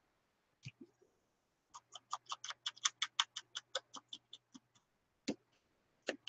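A small ink applicator dabbed rapidly against the edge of a paper art card: a run of quick light taps, about seven a second for some three seconds, with a few single taps before and after.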